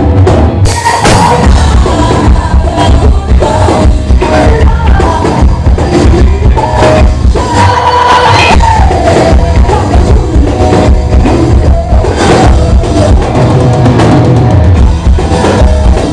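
Rock band playing live at full volume, the drum kit's bass drum and snare driving a steady beat under the rest of the band.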